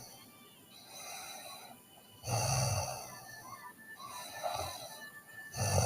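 A sleeping girl snoring in a slow, regular cycle. There is a loud snore about two seconds in and another starting near the end, with quieter breaths in between.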